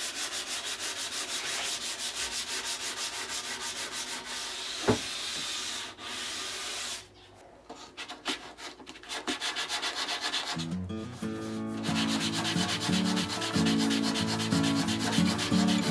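Hand sanding of hardwood edges with a knob-handled sanding block: quick back-and-forth rubbing strokes of sandpaper on wood, about four a second. About ten seconds in, soft background music comes in under the strokes.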